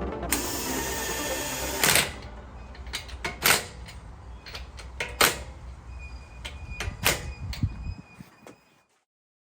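Background music winding down: a dense layered passage for about two seconds, then sparser sharp hits with faint held tones, fading out to silence near the end.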